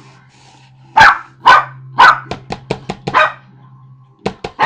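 Pomeranian barking: four sharp barks about half a second apart, with quicker short yaps between them and again near the end.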